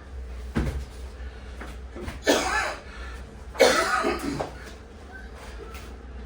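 A person coughing twice, two harsh coughs about two and three and a half seconds in, over a steady low hum.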